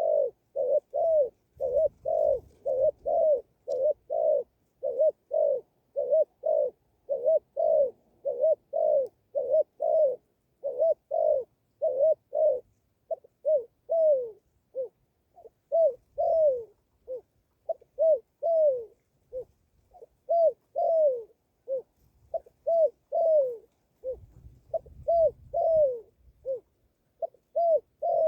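A dove cooing over and over: short, low, arching coos repeated about twice a second in a long series, with brief pauses between runs.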